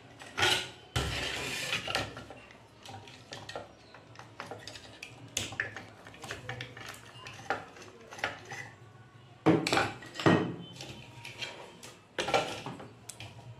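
Handling noise from an inverter welding machine's circuit board, with its heat sink and wires, being turned over, set down and worked on a workbench: scattered clicks, knocks and clatter of hard parts, a short scrape about a second in, and louder knocks about half a second in, around ten seconds and near the end.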